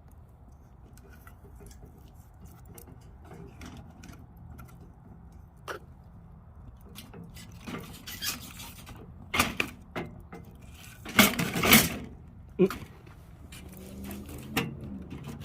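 Metal clanks and scraping from the offset smoker's steel air vent being worked open and shut: a scattering of sharp knocks, with the loudest cluster of clanks a little past the middle.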